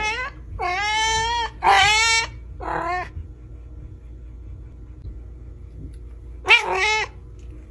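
A domestic cat meowing repeatedly: four drawn-out meows in quick succession, then a pause of about three seconds and one more meow near the end.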